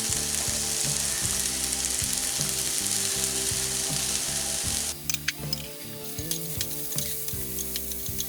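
Chopped chorizo, ham, mushrooms, peppers and onion sizzling in olive oil in a frying pan. About five seconds in the sizzle drops, and a utensil clicks and scrapes against the pan as the mix is stirred.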